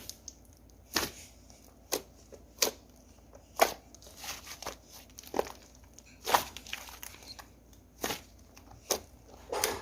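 Hands squeezing and stretching slime, giving sharp pops and crackles about once a second.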